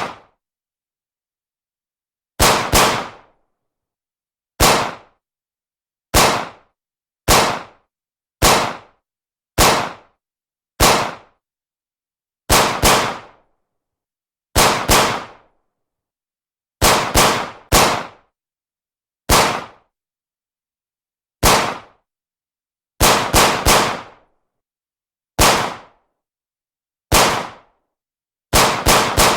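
Beretta 92F 9 mm semi-automatic pistol firing in the reverberant space of an indoor range. Single shots and quick strings of two or three shots come every second or two, each a sharp crack with a short ringing tail, with a faster string near the end.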